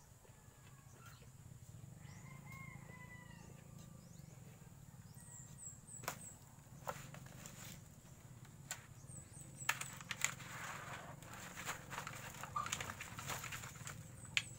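Rustling, scraping and sharp clicks of a plastic seedling tray being picked up and handled, sparse at first and dense from about ten seconds in, over a low steady hum. About two seconds in, a faint distant rooster crows.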